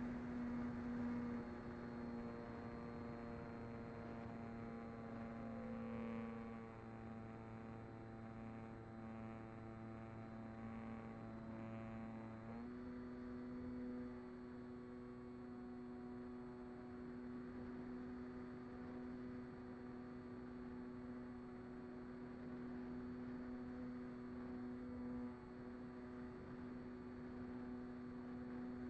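Mini Talon FPV plane's electric motor and propeller heard from the onboard camera: a steady droning hum in flight, its pitch stepping up slightly about halfway through as the throttle changes.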